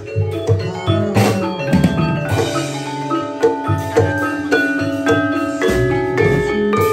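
Javanese gamelan ensemble playing: bronze-keyed saron-type metallophones struck with wooden mallets in a steady run of ringing notes, over low kendhang drum strokes.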